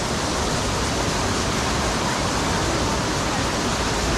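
Steady rush of water from a waterfall and its rocky stream, an even unbroken noise at a constant level.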